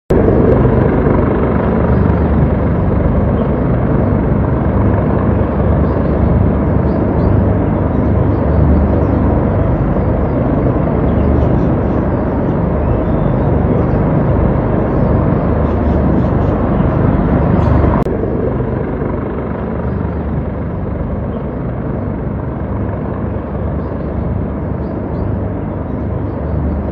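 Helicopter rotor and engine noise, steady and continuous as it circles overhead. It drops suddenly quieter about two-thirds of the way through.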